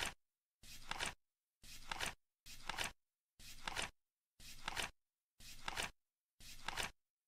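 Flip-clock sound effect: a split-flap card flipping about once a second as the seconds count down, each flip a short rustle ending in a sharp clack, with silence between flips.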